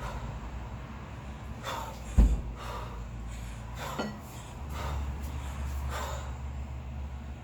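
Forceful, rhythmic breathing of a kettlebell lifter working through a long-cycle set with two 16 kg bells, sharp exhalations about once a second. One heavy thud a little over two seconds in, with a lighter knock near four seconds.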